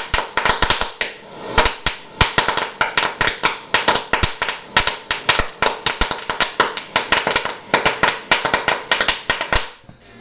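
Rapid, irregular sharp pops as bubbles of hydrogen gas from a stainless-steel-wool electrolysis cell break the water surface in a bucket and are ignited by a handheld torch flame, several pops a second. The popping dies away just before the end. The dense popping is a sign of strong gas output from the cell.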